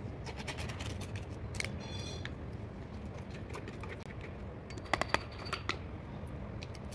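Metal spatula scraping dried fungal mycelium off a plastic petri dish: a run of short scratches and clicks in the first two seconds, and a few more around five seconds in.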